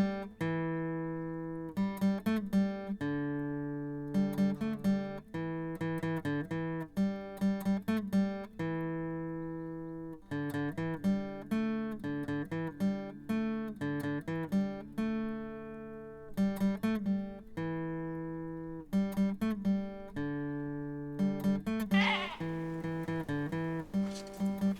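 Instrumental music: an acoustic guitar picking a repeating tune, each plucked note ringing and fading.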